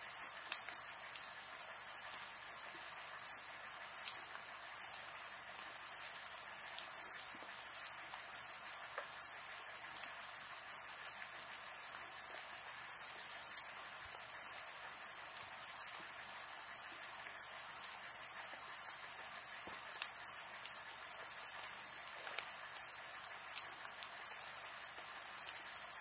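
Night insects, cricket-like, chirping in short high-pitched pulses about two to three times a second, over a steady hiss of rain.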